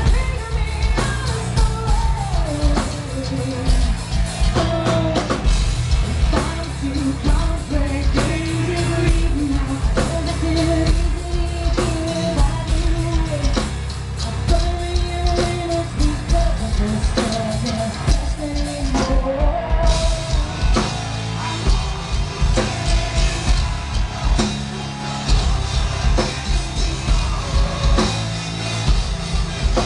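Live metal band playing loud, with a woman singing the melody over drum kit, bass and guitars, heard from the crowd.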